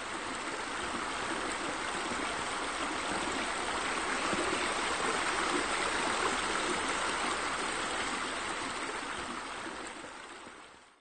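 Steady rush of running water, growing slightly louder toward the middle and fading out near the end.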